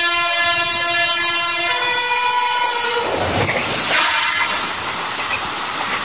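WAP-7 electric locomotive's twin-tone horn blaring, cutting off about two seconds in. About a second later the train rushes past at full line speed, loudest as the locomotive goes by, then the coaches clattering past.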